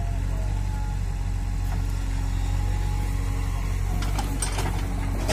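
JCB 3DX backhoe loader's diesel engine running steadily as the arm works. About four seconds in, a few knocks as clods of soil drop from the bucket into the trolley.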